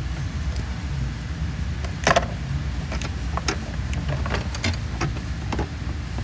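Sharp clicks and clacks of hand tools and small metal parts being handled on an engine, with one louder clack about two seconds in and a string of lighter clicks after it, over a steady low rumble.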